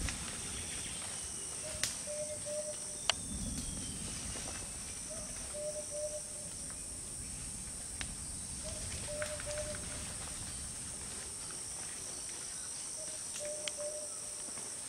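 Forest insects keep up a steady high-pitched drone, and a short call of three or four low notes repeats every few seconds. Footsteps rustle through dry leaf litter, with a few sharp clicks of snapping twigs.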